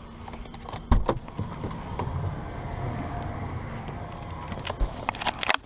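A single solid thud about a second in, like a car door shutting, over a steady low rumble, with a quick run of clicks and handling noises near the end.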